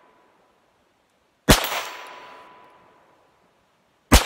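Two .22 LR shots from a Calico M100 pistol, about two and a half seconds apart, each with a long decaying echo. After each shot comes a steady ringing tone from the steel target as the bullet hits it.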